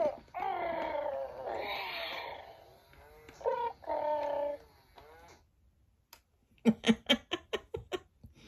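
Animatronic plush polar bear cub toy making electronic cub vocal sounds, a run of bending pitched calls and then a shorter burst, as it goes through its switch-off routine. Near the end there is a quick run of about ten short clicks.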